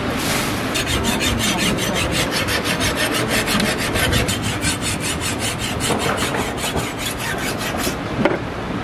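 A steel kitchen knife being sharpened against a flat metal hand file, in quick, even rasping strokes about five a second. The filing stops near the end, followed by a single sharp knock.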